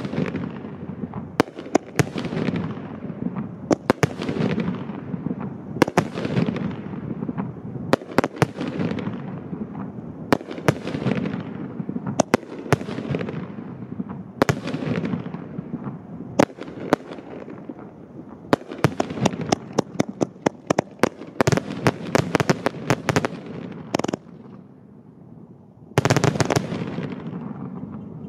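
A 50-shot cake of 2-inch peanut-shell aerial fireworks firing shot after shot, each sharp bang followed by a rolling boom that echoes away, about one every two seconds. Past the middle the bangs come in a dense run of quick cracks, then a short lull before another loud burst near the end.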